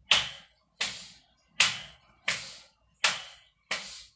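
Hands slapping against the thighs in a steady rhythm as a Tai Chi warm-up, six slaps a little under a second apart, each with a short fading rush.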